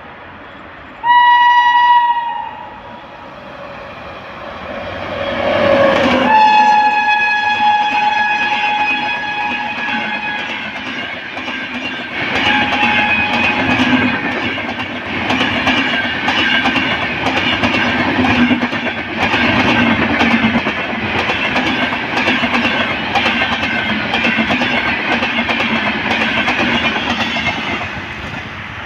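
WAP-7 electric locomotive horn sounding a short blast, then a long blast of about four seconds as the train arrives, with a brief note later on. Then the LHB express coaches pass at high speed: a steady rumble with rapid clattering of the wheels over the rail joints, dropping away near the end as the train recedes.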